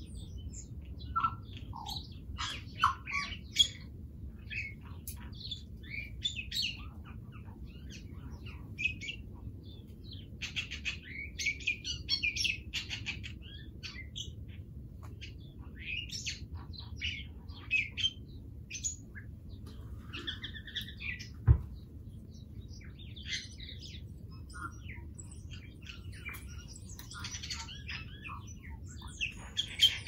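Small birds chirping and twittering in many short, irregular calls over a steady low rumble. A single sharp knock about two-thirds of the way through.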